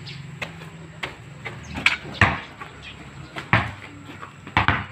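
A basketball striking hard surfaces: about five sharp thuds, irregularly spaced, as the ball hits the backboard or rim and bounces on a concrete court, the loudest about two seconds in.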